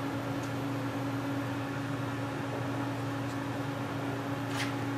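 Steady low electrical or mechanical hum, such as a fan or appliance running, with a faint click near the end.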